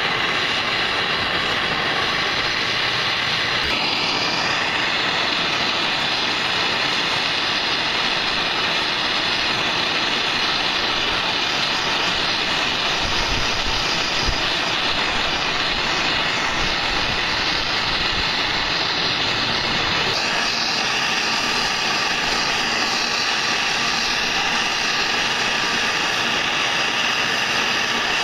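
Handheld propane torch burning with a steady hiss while it heats a copper pipe joint for soldering. The tone of the hiss shifts slightly about 4 seconds in and again about 20 seconds in.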